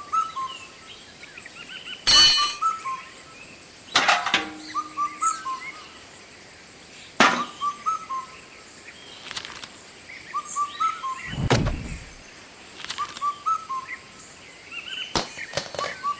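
A bird singing short phrases of chirps that repeat about every two and a half seconds, with several sharp clicks or knocks and one duller thump in between.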